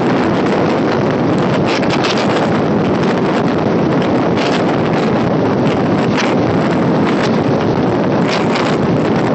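Heavy wind buffeting the microphone held outside a moving electric multiple unit (EMU) local train, over the steady running noise of the train on the track.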